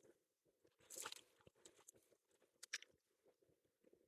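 Near silence, broken only by a few faint, irregular soft clicks and a brief rustle about a second in.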